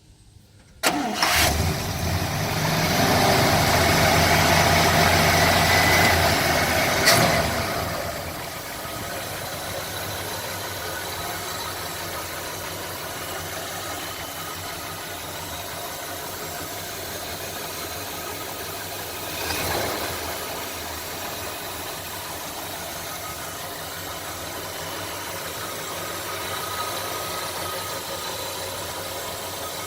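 1955 Packard Clipper's 352 cubic-inch V8 catching about a second in and running at a fast idle. A sharp snap comes about seven seconds in, after which it settles to a steady, lower idle.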